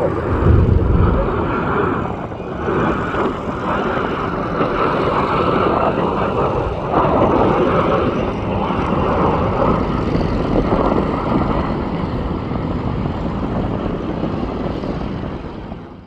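Boeing 737 jet airliner arriving to land, its engines making a loud, steady rush that swells a little and eases. The sound cuts off suddenly at the end.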